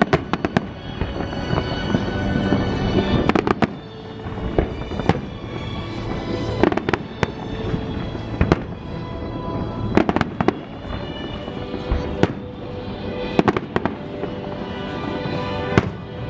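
Aerial fireworks bursting: a quick run of sharp bangs near the start, then single and clustered bangs every second or two.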